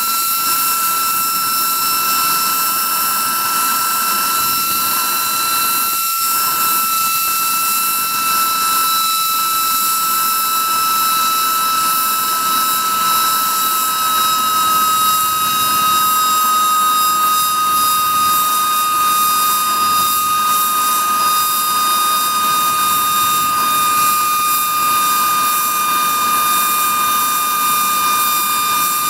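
Homemade jet noisemaker running steadily: a loud whistling whine over a strong rushing hiss, its pitch sinking slightly over the stretch.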